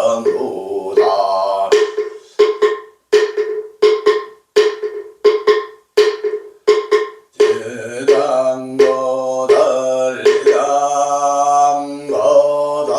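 Male voice chanting a Korean Buddhist invocation on long, held notes. It breaks off for about ten evenly spaced strikes of a percussion instrument, a little under two a second, each dying away quickly. The chant then resumes over a low steady tone.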